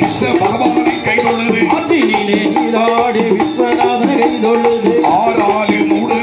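Villu paattu bow-song music: the bells on the large bow jingle in a steady beat as its string is struck with sticks, under a wavering melody.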